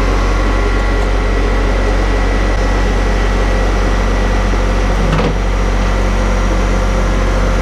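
Steady, loud vehicle drone: a constant low engine hum with road noise, with a brief knock about five seconds in.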